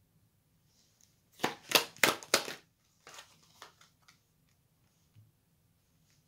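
Tarot cards being handled: a quick run of about five sharp card snaps about a second and a half in, then softer rustles and clicks as a card is drawn from the deck and laid on the spread.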